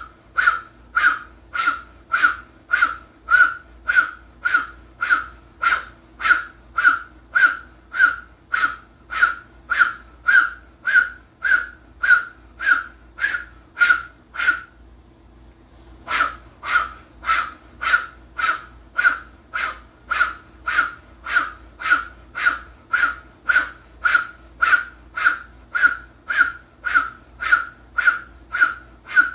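Kundalini breath of fire done through an O-shaped mouth: quick, forceful exhalations, about two a second, each with a hollow whistling tone. It breaks off briefly about halfway through, then picks up at the same pace.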